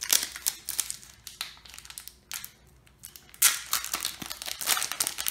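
Foil wrapper of a trading-card booster pack crinkling in the hands as it is worked open, in uneven rustling bursts that are loudest from about three and a half seconds in.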